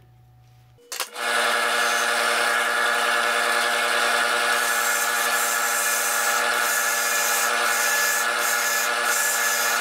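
Drill press turning a wooden block while a hand chisel carves it: the steady hum of the spinning machine under the rough, hissing scrape of the chisel edge cutting the wood. The sound starts abruptly about a second in and holds steady from then on.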